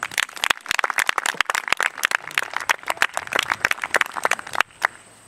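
Small crowd of spectators applauding with dense, uneven hand clapping that cuts off suddenly near the end.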